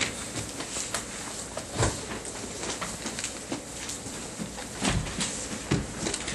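Classroom rustle as students turn to a page in their textbooks: paper and shuffling noise with a few scattered knocks, the loudest about two seconds in and near the end.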